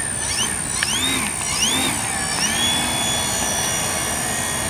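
Radio-controlled Cessna model plane's motor and three-bladed propeller revved up and down several times, each a rising and falling whine, then held at a steady whine from about halfway through. It is being run up in the hand just before launch.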